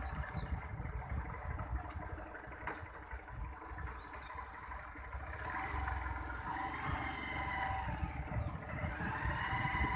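Motorbike engine running as it rides, with wind rumbling on the microphone and a few short high chirps, likely birds.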